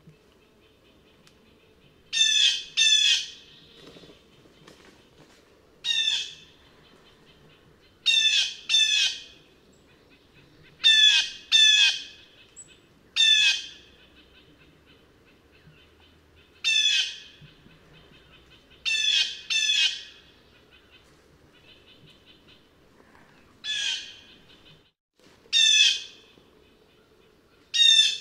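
Blue jay giving harsh, falling 'jay' calls, singly or in quick pairs, about every two to three seconds.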